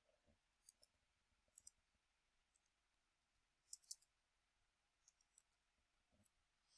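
A few faint, scattered computer keyboard key clicks, some in quick pairs, over near silence.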